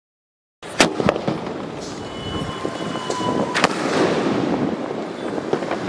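Chima 'Silver Halo' 2-inch sky shot firework going off: a sharp bang just under a second in, then crackling hiss and a faint steady whistle, and a second loud bang about three and a half seconds in.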